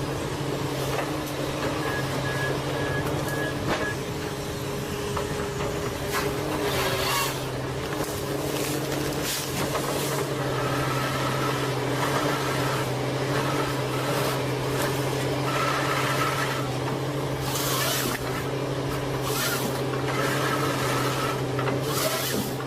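Machinery running with a steady hum, with short hissing or rasping bursts every few seconds.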